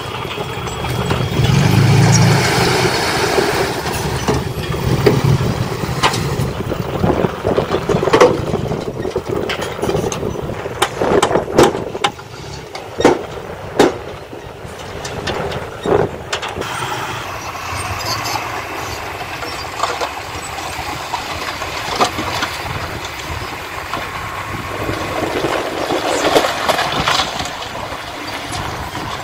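Diesel engines of small dump trucks running while they tip loads of dirt and broken stone, with a string of sharp knocks and bangs about a third of the way through.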